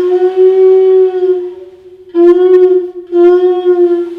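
A Māori taonga pūoro wind instrument is blown in three held notes on the same steady pitch. The first lasts about two seconds, and the next two are shorter, about a second each.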